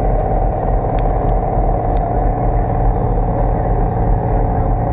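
Vehicle ferry's engine running steadily, a constant pitched hum. Two faint clicks come about one and two seconds in.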